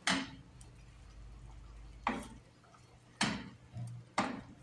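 A wooden spoon knocking against a stainless steel pot while potato and cassava are mashed into broth. About five sharp, irregular knocks, one to two seconds apart at first and closer together near the end.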